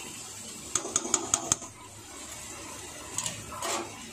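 Metal spatula knocked sharply against the rim of an aluminium kadai about five times in quick succession, then two lighter clicks and a short scrape near the end.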